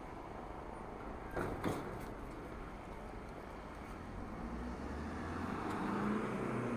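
Street traffic noise, with two short knocks about a second and a half in; over the last couple of seconds a motor vehicle's engine hum grows louder as it comes close.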